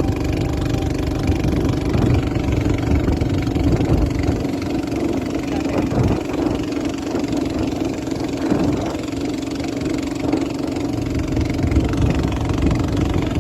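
Boat engine running steadily under way.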